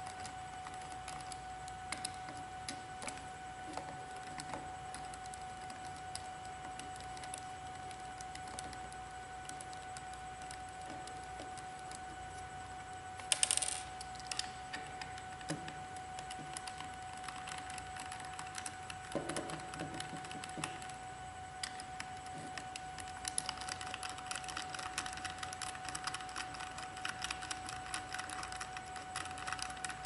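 A 2.5 mm hex driver turning out small Allen screws from a plastic Panduit PAT4.0 tool head housing: light clicks and scrapes of the bit and of the plastic housing being handled, denser near the end. A brief louder clatter comes about halfway through, over a faint steady hum.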